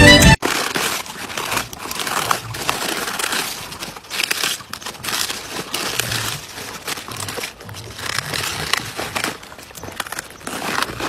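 A dog chewing raw vegetables: irregular crunching and crackling bites.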